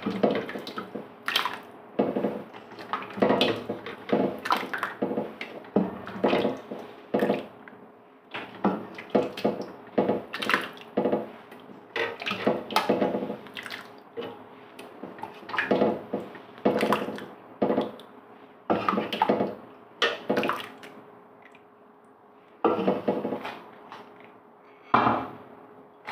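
A ladle dipping into a large metal pot of curry and pouring it into a stainless-steel serving dish: repeated knocks and scrapes of the ladle against the pot, with the pot ringing, and splashes and drips of the broth. The knocks come a few times a second at first, thinning out to a few single knocks near the end.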